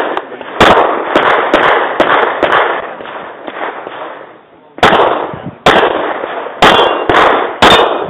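Handgun firing a string of shots, each sharp crack trailing off in a long echo, with a pause of about a second and a half near the middle before the shots resume in quick succession.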